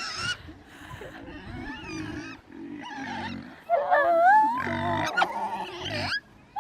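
Geese honking and cackling, many short overlapping calls rising and falling in pitch, loudest about four seconds in.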